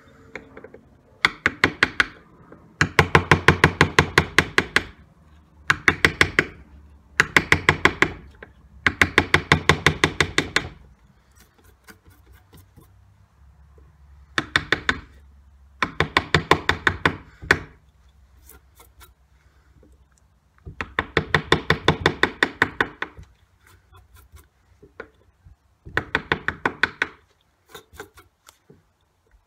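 A hand carving gouge cuts into a wooden table leaf in short hand-pushed strokes. It makes about ten bursts of rapid knocking, each a second or two long, with quiet pauses between them.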